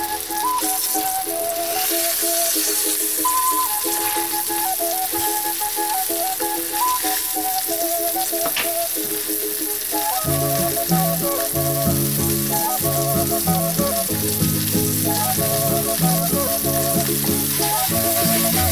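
Breaded pork loin cutlets sizzling as they fry in vegetable oil in a pan, with background music playing over it; the music's bass line comes in about ten seconds in.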